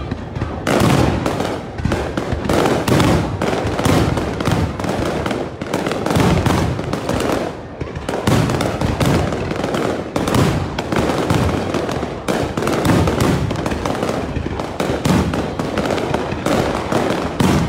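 Aerial fireworks display: a dense, continuous run of shell bursts and crackling, many bangs a second with no pause.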